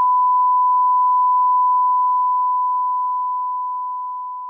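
A steady 1 kHz test tone, the pure sine beep that goes with television colour bars, fading out slowly over the last couple of seconds.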